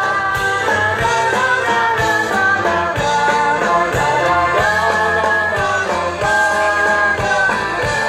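Live rock band playing, with drums keeping a steady beat under sustained melody lines.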